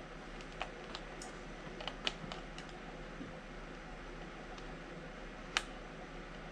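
Scattered small plastic clicks and taps of hands handling a 1/24-scale Axial SCX24 crawler as its body clips are pushed back in, with one sharper click about five and a half seconds in.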